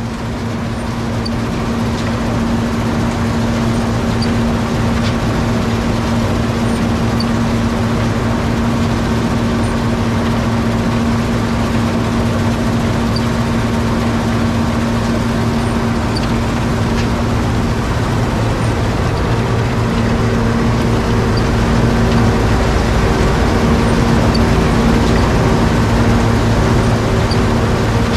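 John Deere 7720 Turbo combine harvesting wheat: a steady, loud drone of the turbocharged engine and threshing machinery under load. It swells over the first few seconds and grows a little louder again near the end.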